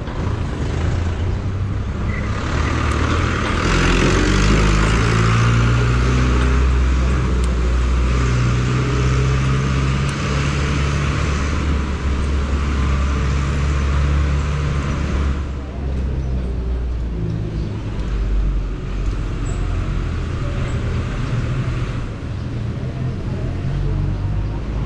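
Street traffic: a motor vehicle's engine running close by, its pitch rising for a moment about three seconds in, with road hiss that grows louder for about thirteen seconds and then drops back to a steadier traffic hum.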